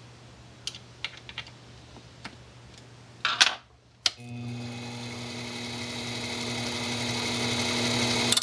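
A few light clicks and a short clatter of handling at a machine tool. About four seconds in, a click, and the machine's electric motor starts: a steady hum that grows gradually louder.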